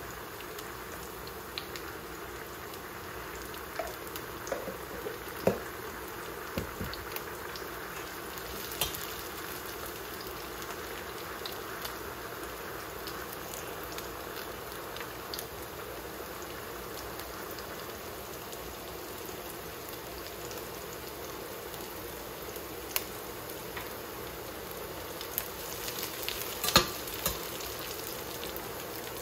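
Onion, garlic and green chili frying in a steel pan, a steady sizzle, with scattered light clicks of metal utensils against the pans, a few about five seconds in and the loudest near the end.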